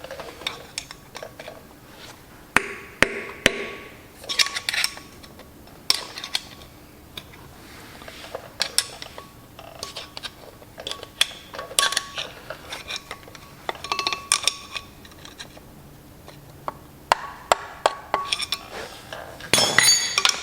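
Irregular metal-on-metal taps and clinks, some ringing briefly, in scattered clusters with a louder burst near the end: hand tools working the steel lock tabs on a tractor's flywheel bolts, tapping a screwdriver under the tabs to bend them up.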